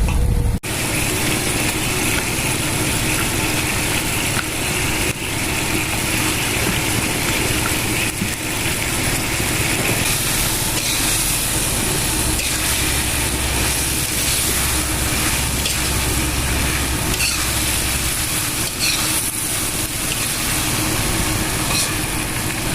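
Noodles and mustard greens sizzling steadily in a hot pan, over a steady low rumble, with a few faint utensil ticks.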